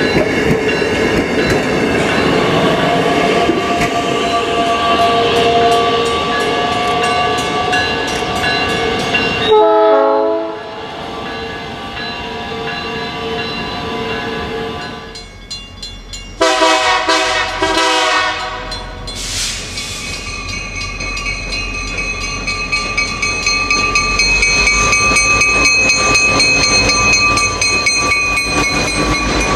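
South Shore Line bi-level electric commuter cars running past close by, with several steady high tones over the wheel and rail noise. A train horn sounds briefly about ten seconds in and again for a couple of seconds around seventeen seconds. From about twenty seconds a South Shore Freight diesel locomotive runs past with a low engine rumble.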